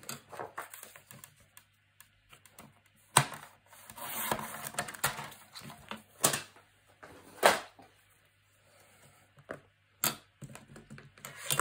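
Patterned paper being cut on a sliding paper trimmer and handled: a few sharp clicks and taps, with a short scraping swish about four seconds in.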